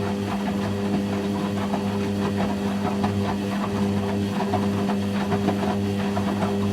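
Hoover Quattro front-loading washing machine running through its rinse and spin programme. A steady hum sits under a lower drone that pulses about twice a second, with many small clicks and knocks from the drum throughout.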